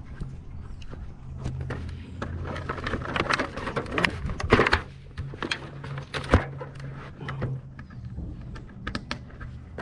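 Climbing harness hardware being handled: metal carabiners and rings clicking and clinking among rustling straps and rope, with two louder knocks near the middle, over a steady low hum.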